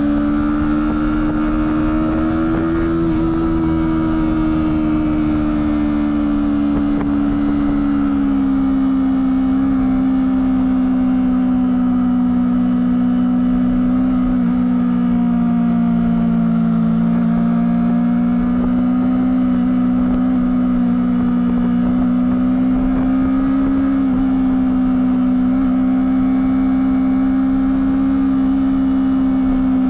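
Honda CBR250RR engine on its stock exhaust running at steady, fairly high revs, its pitch rising slightly about three seconds in and easing a little lower around eight seconds.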